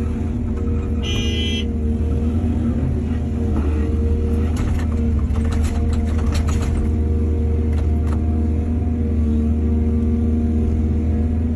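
Excavator's diesel engine running at steady revs, with a brief high squeal about a second in and scattered metallic clanks in the middle.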